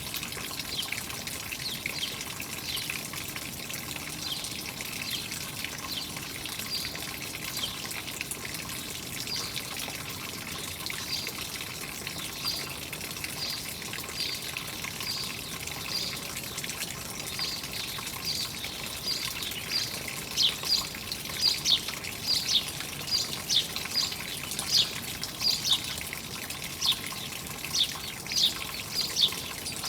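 Small birds chirping in short, repeated calls, about one or two a second, over steady trickling water; the chirps grow louder from about two-thirds of the way in.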